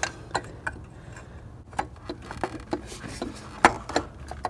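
Scattered light clicks and knocks of a new water pump and its metal coolant pipe being handled and pushed into place on the engine block, with the sharpest knock a little before the end.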